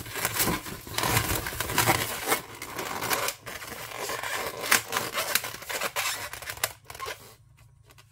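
Latex 260 modelling balloons squeaking and creaking as hands twist and squeeze them together, rubber rubbing on rubber in a quick run of short squeaks. It stops about seven seconds in.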